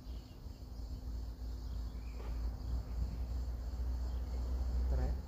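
Crickets chirping steadily over a low, steady rumble.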